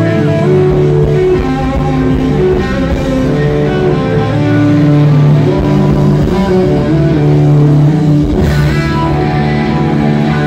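A live rock band plays an instrumental passage led by electric guitar, over bass guitar and drums. A loud drum or cymbal hit lands about eight and a half seconds in.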